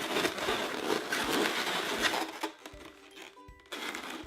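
Latex twisting balloons rubbing and squeaking against each other as they are gripped and twisted together. A dense rubbing, crinkling sound runs for about two seconds, then drops away to a few short, squeaky tones.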